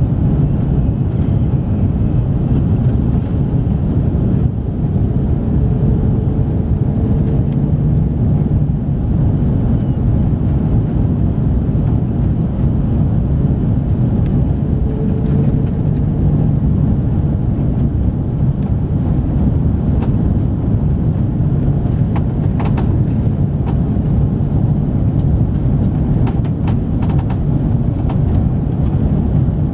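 Cabin noise inside an Airbus A330-300 airliner: a steady, loud rumble of its engines and the airflow, with a few faint clicks in the second half.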